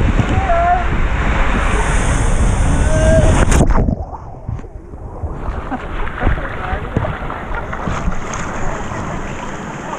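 Loud rushing water with wind noise on the microphone. The noise drops off sharply after about four seconds to a quieter wash.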